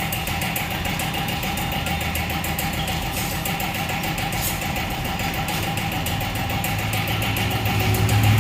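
Machinery running steadily: a low hum with a fast, even ticking over it.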